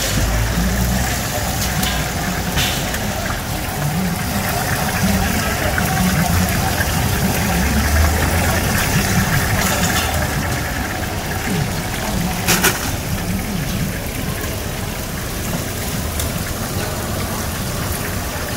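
Battered chicken pieces deep-frying in large woks of hot oil, sizzling and bubbling steadily, with one sharp knock about two-thirds of the way through.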